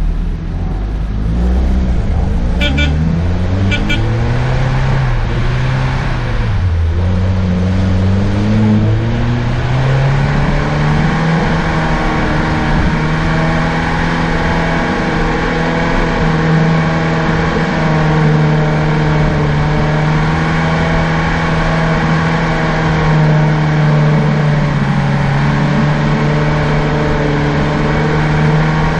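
Daihatsu Feroza's four-cylinder engine heard from inside the cabin while driving: its speed rises and falls for about the first ten seconds, then holds at a steady pitch.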